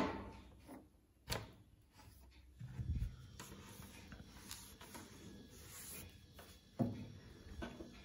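Faint handling sounds from a front-loading washing machine's door: a click at the start, another about a second in, a few soft knocks and rubbing, and a sharper knock near the end.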